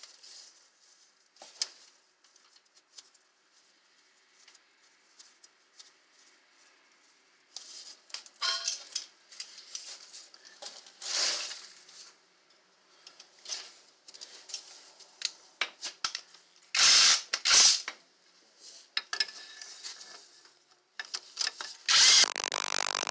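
Scattered metallic clinks and clanks of hand tools and metal parts during a car's CV axle installation. Two sharp knocks come about two-thirds of the way through, and a longer, louder stretch of tool noise near the end as a long socket extension is set onto a bolt beside the axle.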